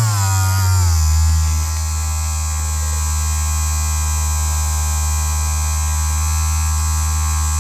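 Battery-powered handheld vibration massager switched on and buzzing. Its pitch drops over the first second or two, then it holds a steady low buzz.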